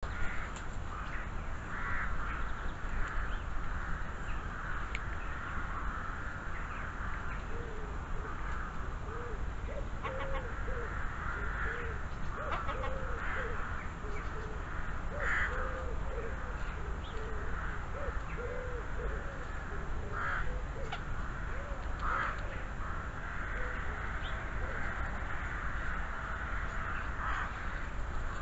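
Hooded crows cawing now and then over a steady hiss, with a run of short, low, arching calls through the middle.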